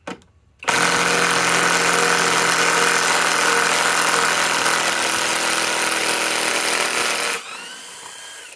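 Harbor Freight Hercules Gen 2 cordless compact impact wrench hammering steadily as it drives a 5-inch lag screw. Near the end the hammering stops and a quieter motor whine follows for about a second.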